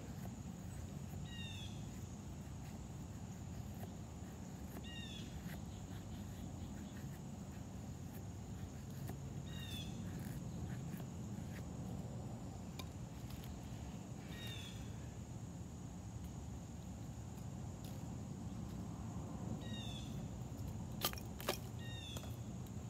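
Fixed-blade knife shaving thin curls off a stick of split wood, faint scraping strokes, with two sharper knocks a little before the end. Behind it, a steady outdoor hum and high insect drone, with a short chirping call repeating every four to five seconds.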